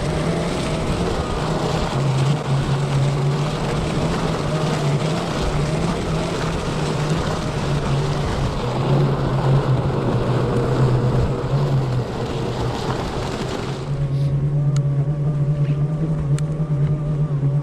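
Omeo self-balancing off-road wheelchair on the move: a steady electric drive-motor hum under a loud rushing noise. The rushing drops away about three-quarters of the way through, leaving the hum with a wavering whine.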